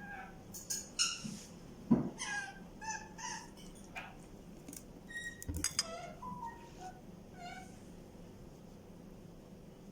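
A series of short, high-pitched animal calls, a dozen or so spread over the first eight seconds, with a couple of light knocks among them.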